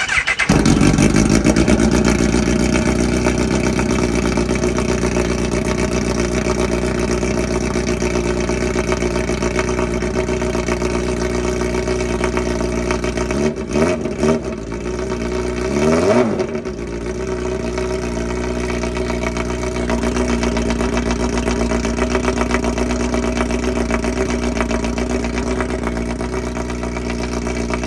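Honda CB1000R's inline-four engine idling through a Black Widow aftermarket exhaust with its 51 mm removable baffle fitted. The engine is blipped twice, about 14 and 16 seconds in, then settles back to a steady idle.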